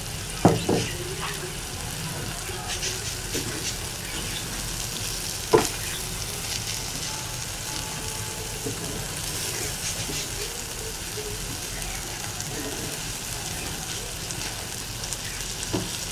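Minced beef sizzling on a tawa griddle after a splash of water, stirred and scraped with a wooden spatula. A few sharp knocks come through, the loudest about five and a half seconds in.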